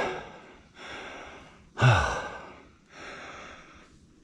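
A man breathing hard, a run of deep breaths about a second apart with a voiced sigh about two seconds in as the loudest. He is out of breath from climbing a nearly 100-foot rope.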